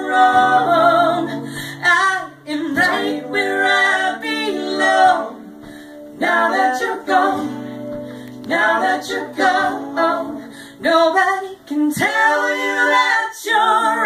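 A woman singing live, accompanying herself on a steel-string acoustic guitar, in sung phrases with short breaks between them.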